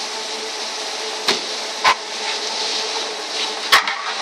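Motor-driven truck-loading belt conveyor running steadily with heavy sacks of cotton seed cake on the belt, with three sharp knocks along the way.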